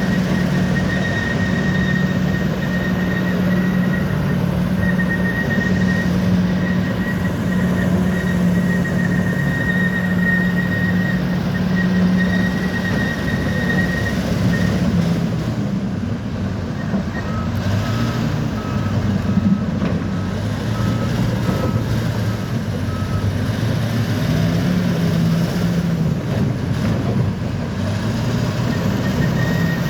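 Bulldozer's diesel engine running steadily under work, with a high whine over the first half. A little past halfway the engine note drops and a reversing alarm sounds about ten evenly spaced beeps.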